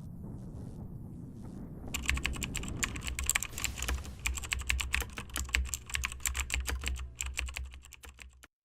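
Fast typing on a mechanical keyboard with MX-style clicky switches: a dense, irregular run of sharp clicks that starts about two seconds in and stops abruptly near the end, over a low steady hum.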